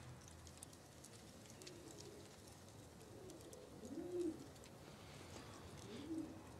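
A pigeon cooing faintly, three low coos about two seconds apart, the middle one the loudest.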